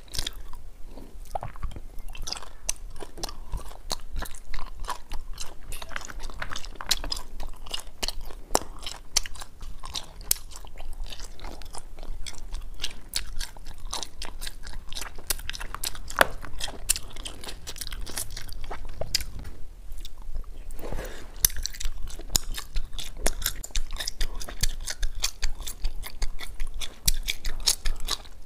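Close-miked chewing and biting of wax bottle candy: a dense run of crisp crunches and clicks as the wax shells crack and are chewed.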